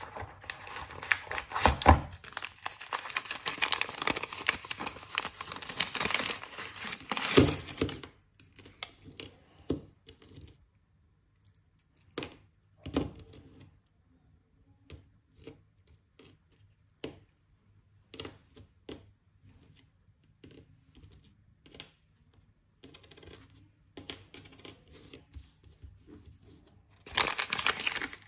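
Paper packaging pouch crinkling as it is handled and opened, then small SPD cleats, bolts and washers clicking and clinking one at a time as they are set down on a table, with paper crinkling again near the end.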